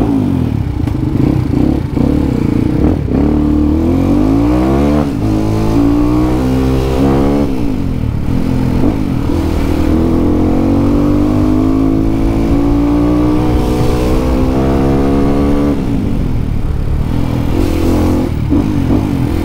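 Yamaha WR155R supermoto's single-cylinder engine under way, the revs climbing and dropping back twice in quick succession as it shifts up through the gears, then pulling steadily in a higher gear before the throttle closes near the end. It runs a stock NMAX camshaft, which the rider says gives a less aggressive exhaust note.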